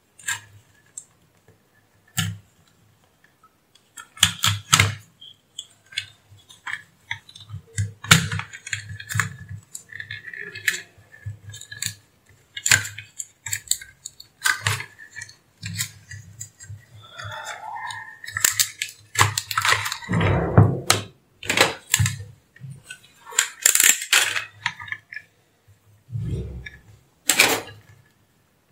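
Irregular clicks, knocks and clatter of small parts being handled on a workbench: transformer leads, a plastic plug connector and multimeter probes bumping and rattling.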